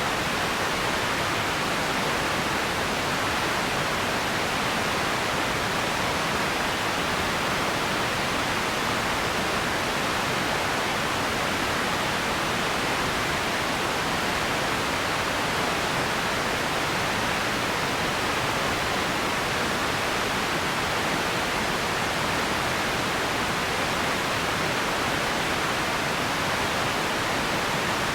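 Steady, even hiss of an empty-ambience background noise track, unchanging, with no separate sounds standing out in it.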